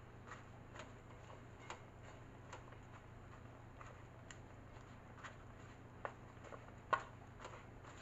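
Faint, irregular clicks and taps of a silicone spatula against a pan as herb leaves are stirred, with a sharper knock near the end. A low steady hum sits underneath.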